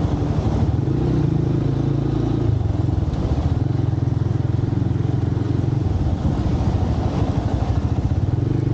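Motorcycle engine running under the rider, its pitch stepping up and down with the throttle. About six seconds in it settles into a low, even pulsing, over steady road noise.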